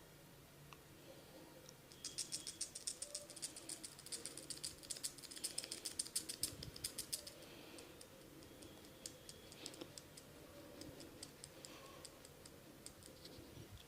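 Close-up crackling of a barber's hands working the hair and head during a massage. About two seconds in comes a fast, dense run of crisp clicks lasting around five seconds, then scattered clicks.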